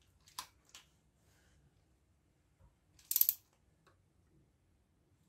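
Faint metallic ticks, then about three seconds in a short, louder burst of quick clicks, from a click-type torque wrench and socket working a cylinder-head nut during the first torque pass.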